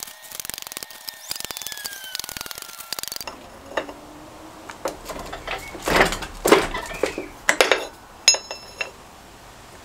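Cut pieces of steel angle clattering lightly as they are stacked, then separate metallic knocks and clinks as a piece of angle is handled and set into a press die, one clink ringing briefly near the end.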